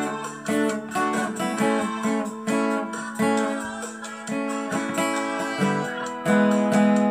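Instrumental break in a pop song: guitar playing plucked notes and strummed chords, each note ringing and fading, the playing growing fuller near the end.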